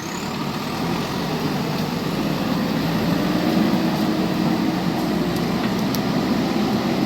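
JCB backhoe loader's diesel engine running, growing gradually louder, with a steady hum coming in about three seconds in.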